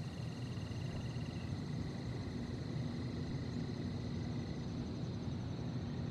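Steady low ambient rumble with faint, high, thin trilling tones held over it; one of the trills stops about a second and a half in.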